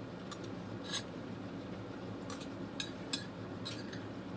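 Light clicks and scrapes of an eating utensil against a dish, about seven short taps spread unevenly through, over a low steady hum.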